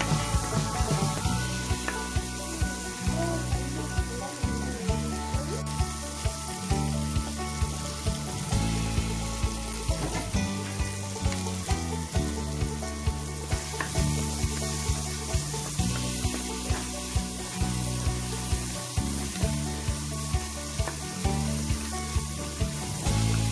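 Chopped onions and tomatoes sizzling as they fry in oil in a clay pot, stirred with a flat spatula. Background music with a steady beat plays along.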